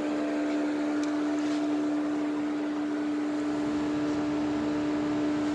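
Steady mechanical hum with one strong constant tone and fainter steady overtones, even throughout with no audible rhythm or stumble.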